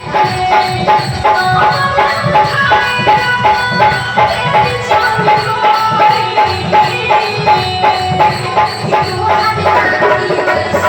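Loud music with a steady beat, about two beats a second, under sustained melodic lines.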